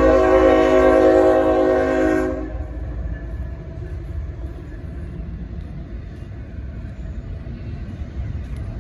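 CSX freight locomotive's air horn sounding one chord, held until about two seconds in, then cutting off. A steady low rumble from the approaching train carries on underneath.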